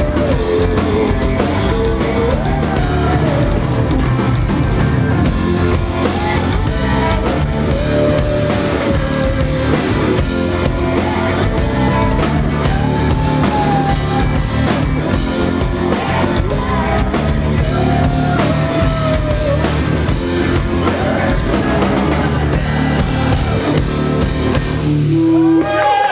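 Rock band playing live: drum kit, guitars and a sung vocal line over a driving beat. The song stops abruptly just before the end.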